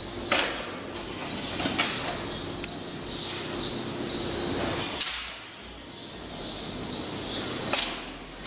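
Metal rattling and clanking from a cattle hoof-trimming crate's mechanism, with a steady hum that stops about five seconds in. Two short loud clatters, about five and eight seconds in.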